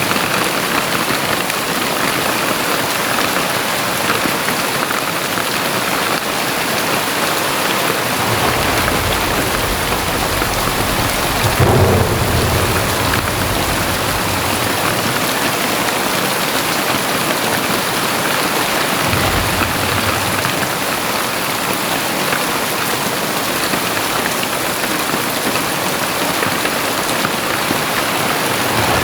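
Very heavy rain pouring steadily. Low thunder rumbles roll in, the loudest about halfway through, with a shorter one a little later.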